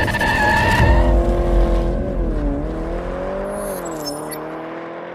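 Car tyres squealing in a burnout for about the first second, then the car's engine running on, its pitch dipping and rising twice as it slowly fades away.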